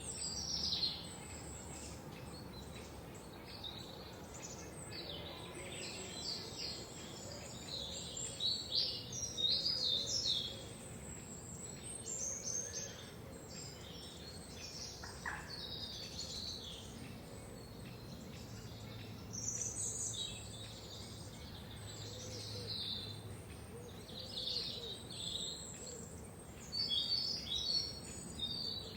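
Several forest songbirds chirping and singing over a faint steady background hiss, in overlapping bursts of quick high notes and trills. The song grows busier about a second in, around eight to ten seconds, around twenty seconds and near the end.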